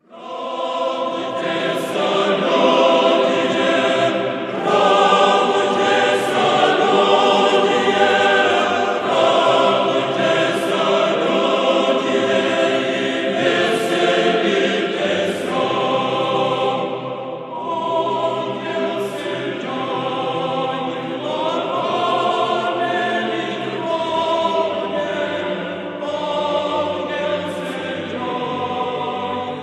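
Orthodox church choir singing a liturgical chant in several voice parts, long held chords with brief breaths between phrases.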